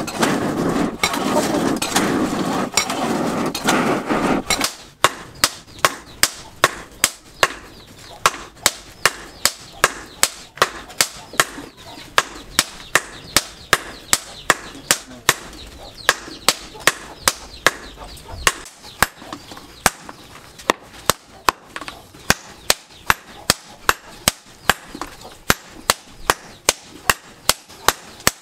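Hand-hammer blows on red-hot car-axle steel held in tongs on a steel post anvil, striking steadily at about two blows a second from about five seconds in. Before that, a loud rushing noise from the coal forge fire.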